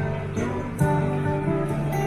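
Background music: a folk song's strummed acoustic guitar playing between sung lines, with the chord changing a little under a second in.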